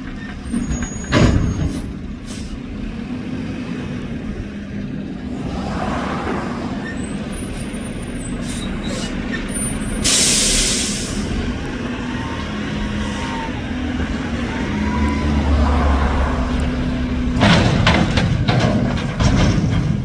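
Mack front-loader garbage truck running as it pulls up to a dumpster, with a sharp air-brake hiss about halfway through. Near the end the engine revs up to drive the hydraulic front arms, and a run of metal clanks comes as the forks pick up and lift the steel dumpster.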